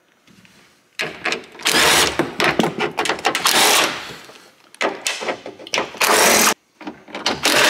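Cordless drill-driver with a socket spinning out the 10 mm bolts that hold the sunroof assembly to the roof: one run of about three seconds, then several shorter bursts with pauses between.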